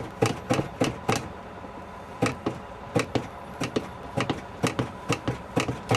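A stuttering run of short, sharp clipped sound fragments in an irregular rapid series, with a quieter gap about a second and a half in: an edited audio stutter.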